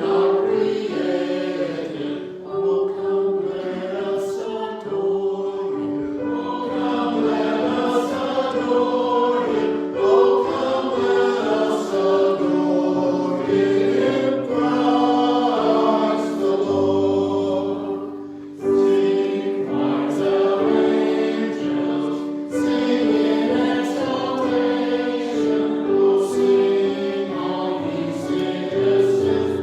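A choir singing with long, held notes.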